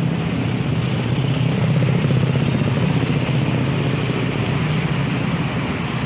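Steady road-traffic noise: the engines of passing vehicles running continuously, with no single event standing out.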